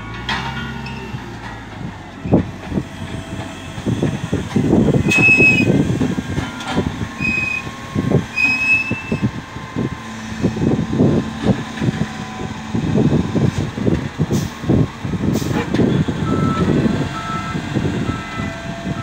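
SDLG wheel loader's diesel engine running with an uneven rumble as it drives up to and lifts a big bag of fertilizer. A reversing alarm beeps three times, a second or two apart, and another lower-pitched alarm beeps several times near the end.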